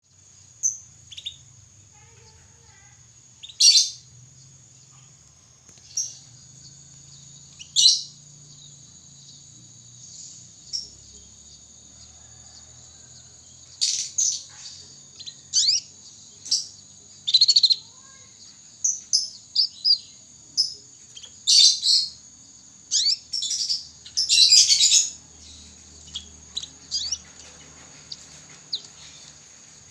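Young canary practising its song, a soft twittering of short chirps and brief trills, sparse at first and coming much more often from about halfway on, over a faint steady high whine.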